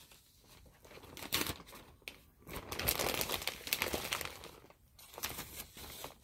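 Clear plastic plant sleeve crinkling as it is pulled off a potted plant by hand, in irregular bursts, loudest about halfway through.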